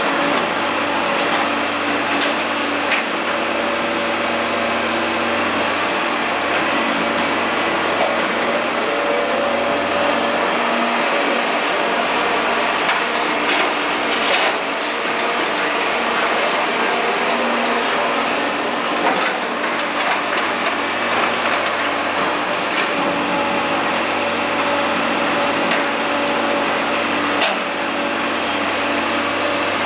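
Caterpillar E240B excavator's diesel engine running steadily while it works, its low hum easing for a while in the middle. A few sharp knocks, the plainest about 14 and 27 seconds in.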